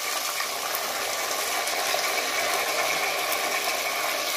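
Chopped tomatoes sizzling in hot ghee with fried onions in a clay pot over a wood fire, a steady frying hiss as they are stirred in.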